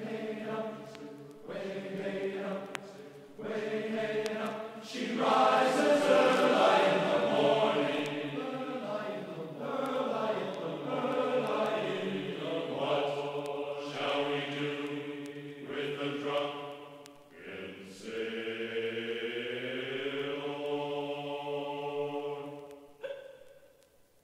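Background music: voices singing together in a slow, chant-like choral song, dropping away briefly near the end.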